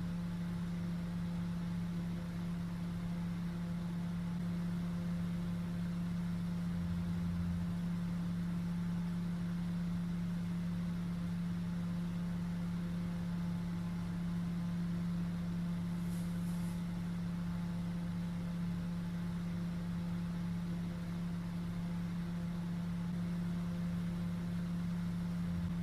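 220 V mains fan with an aluminium housing and plastic impeller running at full speed, giving a steady hum with one strong low tone over a lower mains hum.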